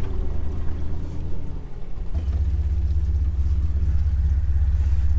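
Jeep TJ engine running at low speed through a deep water crossing, a steady low rumble heard from inside the cab. The rumble dips briefly about a second and a half in, then comes back stronger.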